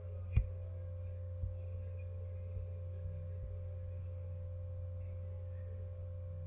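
Steady electrical hum with a faint constant higher tone running under the recording. A computer mouse clicks once about half a second in, with a fainter click around a second and a half.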